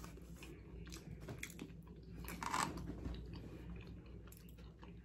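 Chewing and mouth sounds of a person eating a burrito close to the microphone, with scattered small wet clicks and a louder noisy stretch about two and a half seconds in.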